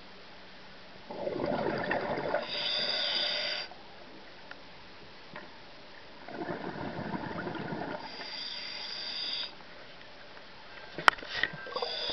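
Scuba diver breathing through a regulator underwater: two breaths, each a bubbly exhale followed by a hissing inhale. A sharp click comes about eleven seconds in, followed by a short clatter.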